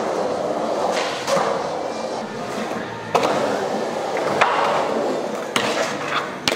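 Skateboard wheels rolling on hard ground, with several sharp clacks and slaps of the board: pops and landings of tricks.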